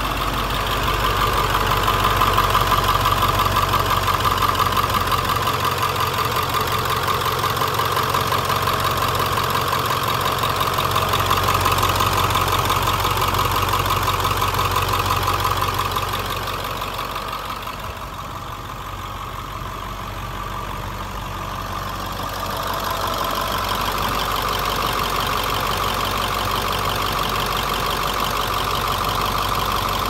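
1997 International 3800 school bus's diesel engine idling steadily, heard close with the hood open. It dips quieter for a few seconds about halfway through, then comes back.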